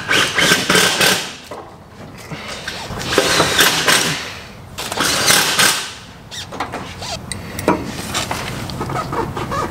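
Adjustable wrench working on a truck's rear upper control arm as its length is adjusted: bursts of metal scraping and clanking about a second long, then a run of sharp metal clinks near the end.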